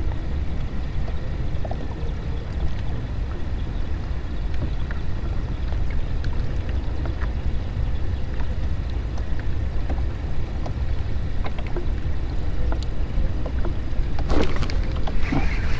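Wind rumbling steadily on the microphone and choppy water slapping and lapping against a small wooden boat, with faint scattered clicks. A louder burst of noise comes in near the end.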